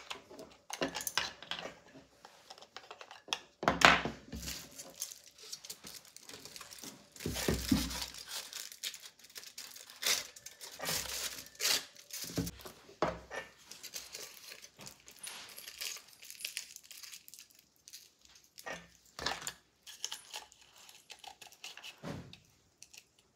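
Clear plastic film crinkling and tearing as it is handled, among clicks and knocks of small plastic parts on a wooden table, the loudest a sharp knock about four seconds in.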